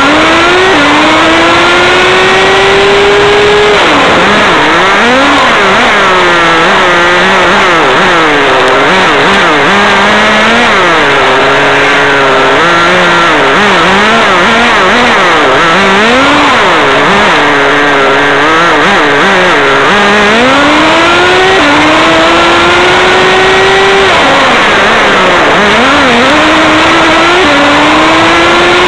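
RC car's motor revving up and down as it drives, loud and close, its pitch climbing in long rises that drop off suddenly, with quicker up-and-down wavers in between.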